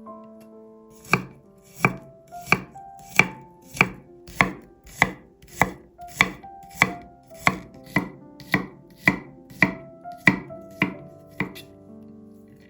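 Knife chopping food on a cutting board in an even rhythm, about eighteen strokes at roughly one and a half a second, over soft piano music.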